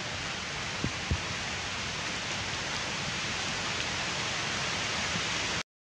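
Steady, even outdoor hiss of forest ambience, with two soft low knocks about a second in. The sound cuts out abruptly near the end.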